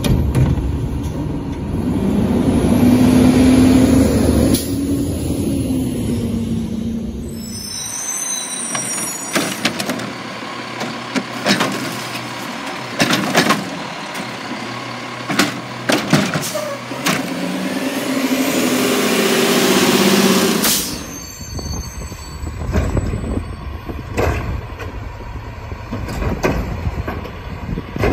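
Autocar WXLL McNeilus front-loader garbage trucks with Curotto-Can automated arms picking up trash carts. The engine revs up to drive the hydraulics as the arm lifts and tips a cart over the hopper, with sharp knocks and bangs as the cart is shaken and set back down, several times over.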